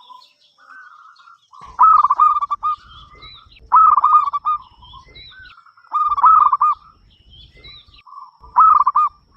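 Zebra dove (perkutut) cooing its song in four loud phrases, each a quick run of rolling notes, about every two and a half seconds, with softer coos between them.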